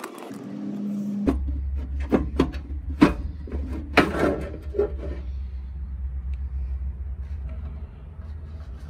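A cordless drill whirs briefly. Then the sheet-metal cover of an inverter case is handled and lifted off, giving a series of knocks and clunks over the next few seconds, over a steady low hum that starts about a second in.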